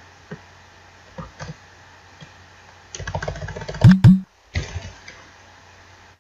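Computer keyboard typing: scattered key clicks, then a fast run of keystrokes about three seconds in, broken by two loud low thumps just after. A steady low hum runs underneath.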